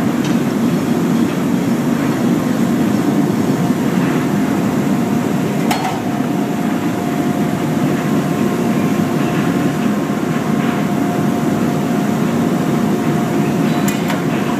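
Steady low roar of glass-factory hot-shop machinery, furnace burners and fans running, with a thin steady whine over it. Two sharp clicks sound, one about six seconds in and one near the end.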